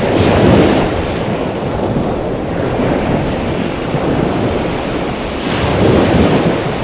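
Ocean surf breaking and washing up on a beach, with wind buffeting the microphone; the rush swells at the start and again near the end.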